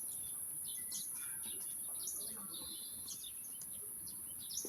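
Birds chirping in many short, high calls over a steady high-pitched hiss.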